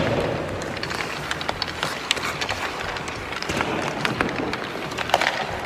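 Ice hockey warm-up on the rink: sticks clacking on pucks and skate blades scraping the ice, with sharp clicks and knocks scattered throughout over a steady rink-wide noise.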